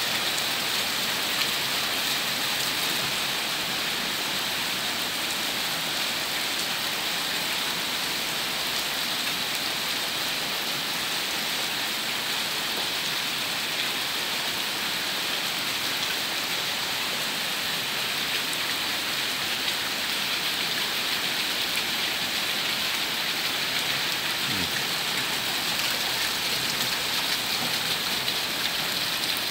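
Heavy rain pouring steadily onto sodden ground and puddles, an even, unbroken hiss.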